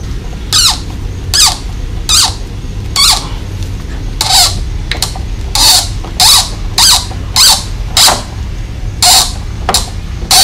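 Recoil starter cord of a Briggs & Stratton lawn mower engine yanked about a dozen times in quick succession, each pull a short zip falling in pitch. The engine, primed with carb cleaner down the intake, cranks without catching.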